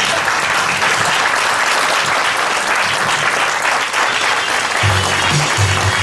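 Theatre audience applauding. Music with a low bass beat comes in near the end.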